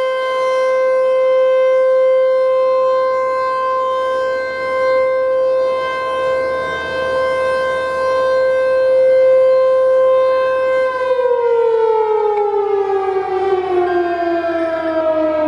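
T-128 outdoor warning siren sounding a steady alert tone, then winding down about eleven seconds in, its pitch falling steadily.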